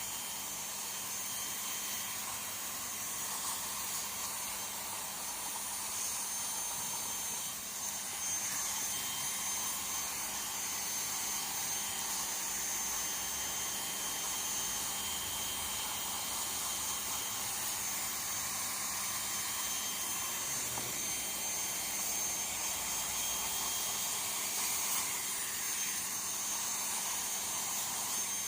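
Electric heat gun blowing hot air, a steady hiss with a faint high whine, used to heat-weld a PVC patch onto a torn canopy.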